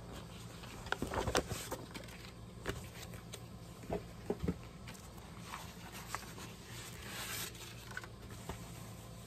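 Paper being handled on a cutting mat: rustling and light taps and clicks as planner pages and sheets of cardstock are moved and laid down, with a longer sliding swish of paper about seven seconds in.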